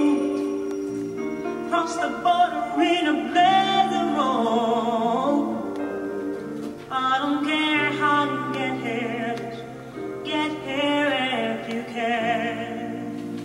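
A song playing: a singing voice with strong vibrato on its held phrases over sustained accompaniment chords.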